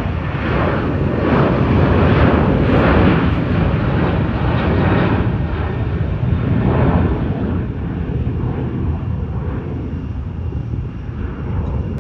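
A fixed-wing airplane's engines, loud and rumbling as it passes, then slowly fading over the second half.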